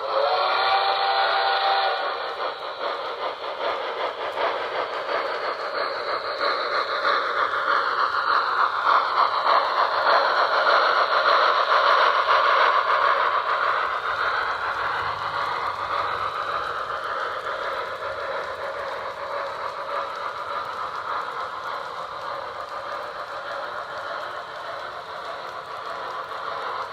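HO-scale model of a D61 steam locomotive with a Tenshodo Quantum sound decoder: a whistle blows for about two seconds. Then comes the running sound of the locomotive and its wheels on the track, which grows louder to a peak around the middle and slowly fades as the train passes.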